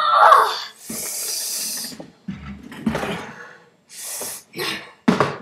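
Young voices making short, wordless vocal noises, with a steady breathy hiss lasting about a second from about a second in.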